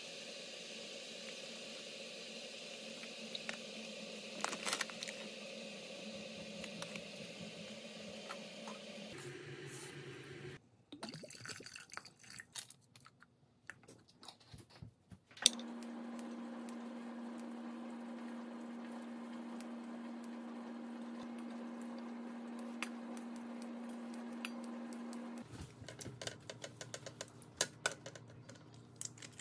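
Quiet stovetop cooking sounds: light splashes of water in a pot and small clicks and taps of utensils and pans, over a steady low hum.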